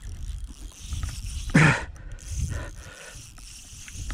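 Spinning fishing reel being cranked, a run of small mechanical clicks as the line is wound in on a hooked tench. About one and a half seconds in, one short loud call cuts in over it.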